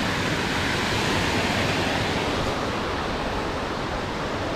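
Water pouring over a small concrete spillway at the end of a stone channel: a steady rushing noise.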